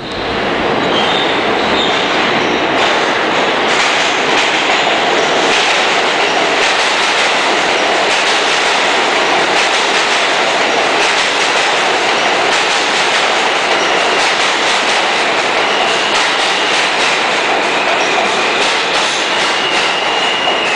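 New York City subway train running in along an underground platform: a loud, steady rumble of steel wheels on rail with rapid clatter over the rail joints, and a thin high wheel squeal that comes in near the end.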